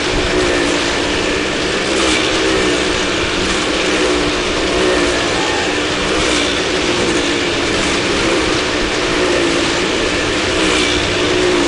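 Small car engines running at steady revs as the cars circle the steep wall of a wall-of-death ring, with a continuous mechanical rattle and clatter.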